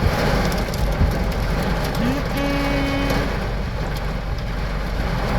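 Heavy thunderstorm rain and wind beating on a car, heard from inside the cabin as a steady rushing noise. About two seconds in, a short pitched tone rises and then holds for about a second.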